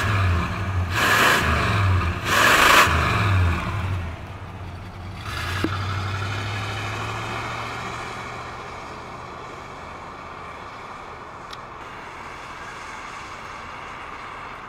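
The 1968 Oldsmobile Ninety-Eight's 455 V8 is blipped three times in quick succession. About five seconds in it pulls away under acceleration, and its engine and exhaust sound slowly fades as the car drives off.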